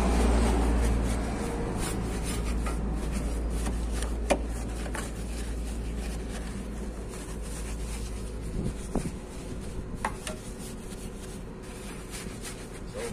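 Rubbing and scraping as air conditioner parts are handled during cleaning, with a few sharp clicks, over a steady low hum that fades out about two thirds of the way through.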